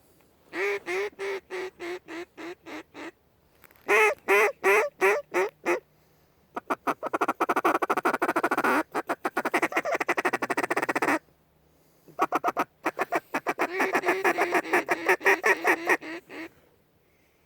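Mallard hen-style quacking in several series of evenly spaced quacks. The first series fades as it goes. A long, fast run of short notes in the middle is like a feed chuckle. A last series comes near the end.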